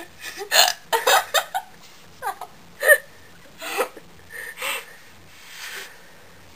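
A woman hiccuping again and again, a short sharp gulp about once a second, mixed with bursts of laughter near the start.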